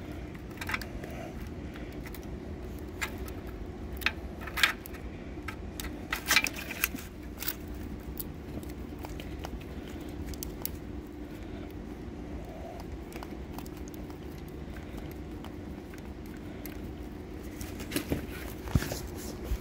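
Scattered light metallic clicks and taps as a loosened bolt is unthreaded by hand under a car, over a steady low hum.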